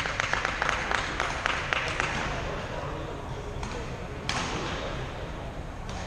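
A few spectators clapping quickly for about two seconds, then trailing off into murmuring voices, with a couple of single sharp knocks later on.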